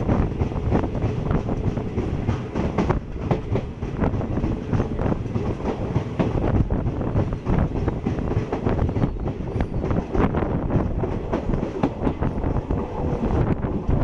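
Train running along the rails: a steady loud rumble with the wheels clattering and knocking irregularly over the track.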